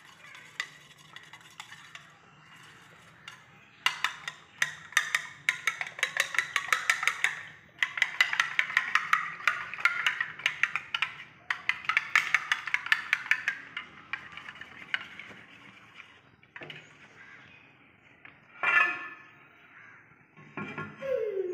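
Metal spoon beating eggs in a plate: fast, rapid clicking of spoon against plate in spells of a few seconds.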